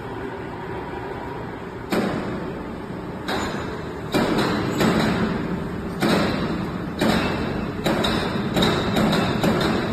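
Tyre bead-ring removal machine running, with a string of sudden loud surges and thuds about every second as it works, the last few coming close together.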